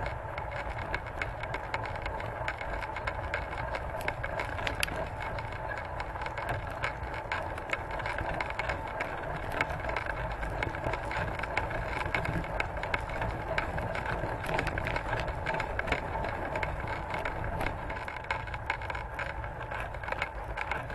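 Snowmobile running steadily while driving over packed snow, with a constant clattering rattle from the machine and its load.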